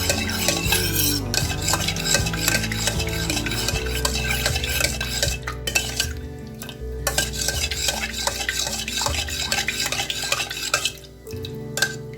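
A spoon stirring in a pot, with rapid clinks and scrapes against its side that thin out near the end.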